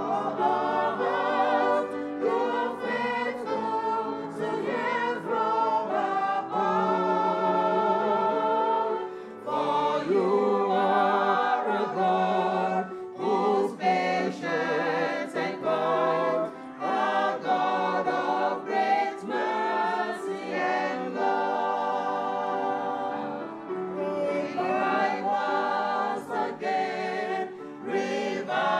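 A small church choir of women's and men's voices singing a hymn together, the long held notes wavering, with short breaths between phrases.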